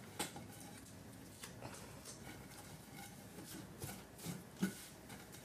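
Hands rubbing along a wooden board, pressing masking tape down onto it, with a few light clicks and two soft knocks near the end.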